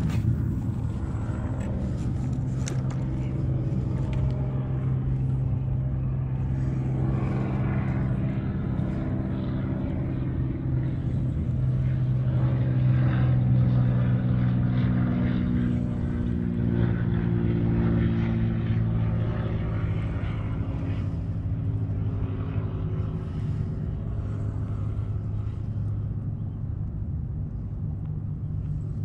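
A steady low engine drone from a passing motor, a little louder around the middle, its pitch drifting slowly.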